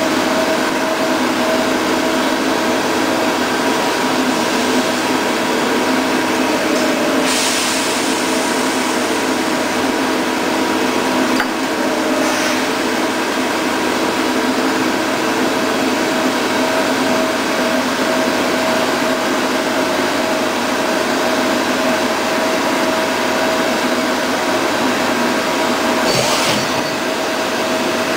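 Mazak Integrex 200SY CNC turning and milling centre running, a steady mechanical hum and whine with several fixed tones. Short bursts of hiss come through a few times.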